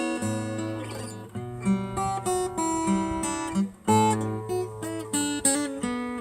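Acoustic guitar playing an instrumental break, picked and strummed notes over a moving bass line, with no singing.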